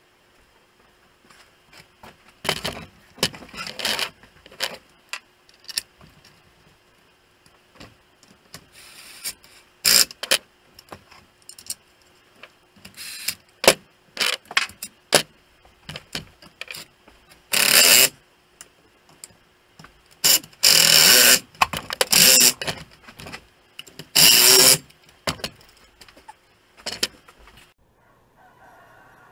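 Hand-tool work on the metal parts of an old chainsaw: scattered clinks and clicks of metal on metal, with several louder rasping bursts of about a second each in the second half.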